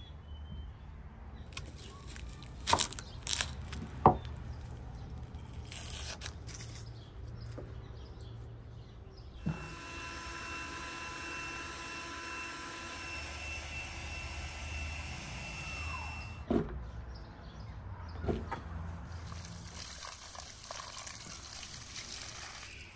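A few sharp knocks and handling sounds at the start, then a steady hiss with faint steady tones for about seven seconds. Near the end, water pours and splashes out of a plastic bowl as peeled onions are rinsed by hand.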